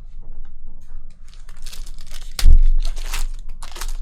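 A foil trading-card pack wrapper being torn open and crinkled in several short rustling bursts, with one loud thump about two and a half seconds in.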